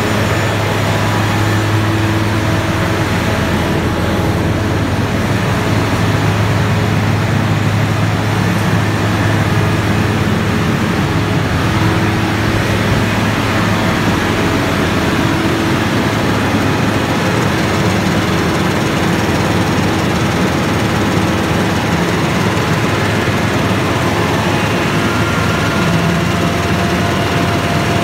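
Cementing skid's machinery running: a loud, steady drone with a strong low hum and no pauses.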